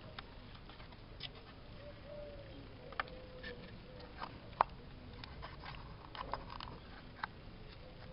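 Small hinged wooden compartment doors on a wooden model fire truck clicking and tapping as fingers open and close them: a few sharp, spread-out clicks, with a faint steady tone in the background.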